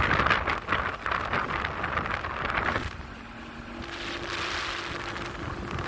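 Small outboard motorboat running at speed over water: gusting wind buffeting the microphone over the engine's steady hum, which shifts a little higher about four seconds in.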